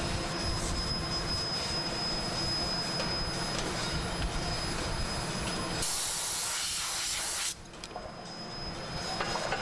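Steady rumbling machinery noise with a thin high whine. About six seconds in, a loud hiss lasts about a second and a half, then stops suddenly, and the noise drops before slowly building back.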